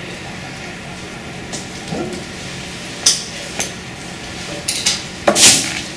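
A few short clinks and knocks from a lecture room over a steady hum, a small cluster near the end and one louder, slightly longer burst just before the end.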